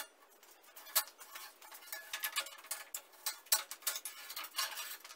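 Rubber spline cord being pulled out of the groove of a mosquito-net frame: a run of irregular light clicks and ticks as the cord comes free and knocks against the frame and mesh.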